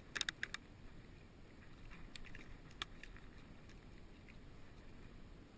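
Short sharp clicks and taps: four in quick succession right at the start, a few fainter ones around two seconds in, and one more near three seconds, over a faint steady hiss.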